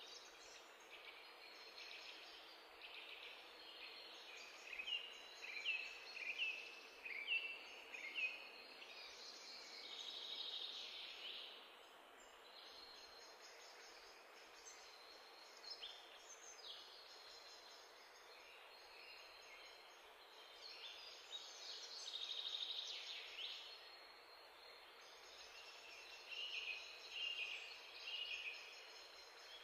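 Faint birdsong: runs of quick, high chirps over a steady hiss, coming and going several times.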